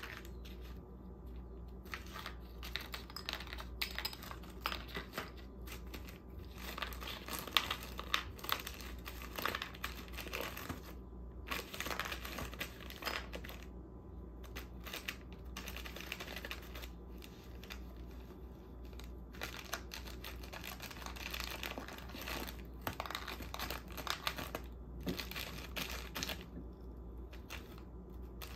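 Clear plastic wrapping crinkling and rustling as a cat paws and noses through a tray of cat food tins, with many irregular light clicks and taps.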